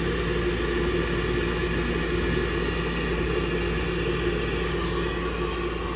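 A gas furnace's draft inducer motor running with a steady hum while the burner fails to light; there is no flame.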